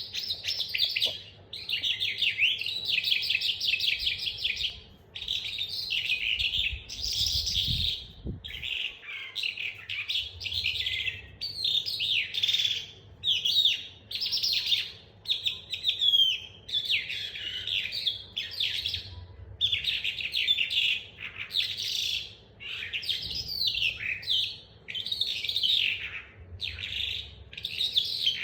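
Young hand-reared calandra lark singing: a steady run of rapid, chattering phrases of one to two seconds each, with short pauses between, as it practises its rolling trill.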